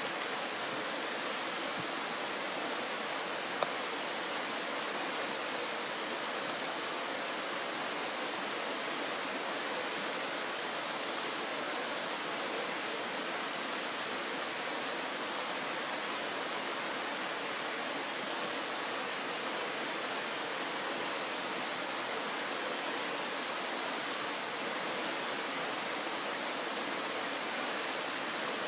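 Shallow mountain stream flowing over a stony bed, a steady rush of water through a small riffle. Four short high chirps are scattered over it, and a single sharp click comes about three and a half seconds in.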